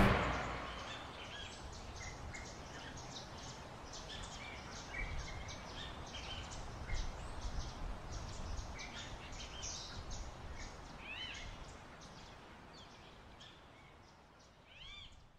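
Faint birdsong: many short chirps and twitters over a low background hiss, fading out about twelve seconds in, with a couple of arched chirps near the end.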